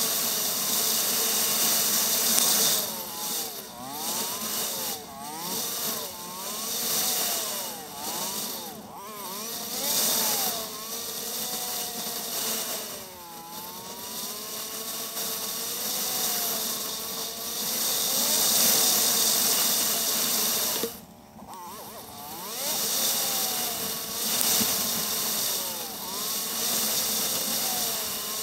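Motorcycle engine running on the move, its pitch repeatedly falling and rising as the rider eases off and opens the throttle. Heavy wind rush on the microphone runs under it, dipping briefly about three-quarters of the way through.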